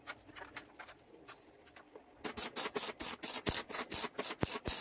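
Electric arc welding of a 2 mm plate bracket, laid in short stitches. The arc crackles in quick separate bursts of about four a second, loud from about two seconds in, after a fainter scattered crackle.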